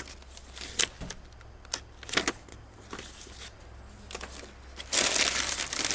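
Scattered light clicks and taps of packaging being handled, then loud crinkling of plastic wrapping starting about five seconds in.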